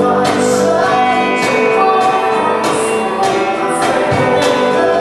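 Live music: voices singing over instruments, with a steady percussive beat about twice a second.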